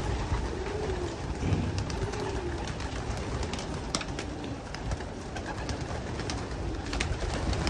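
Domestic racing pigeons cooing, several low rolling coos one after another through the first few seconds, with scattered short clicks.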